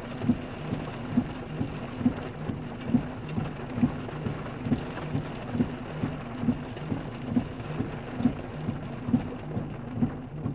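Heavy monsoon rain drumming on a car's roof and windows, heard from inside the cabin, with a steady low hum and a regular soft pulse a little under once a second running through it.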